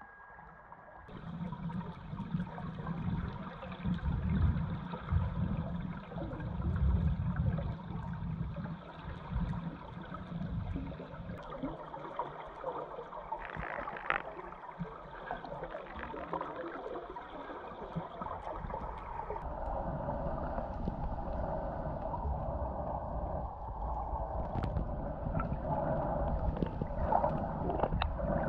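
Muffled underwater noise: a low, uneven rumble of water with gurgling. It changes abruptly about a second in and again about two-thirds of the way through, with a short hissing burst near the middle.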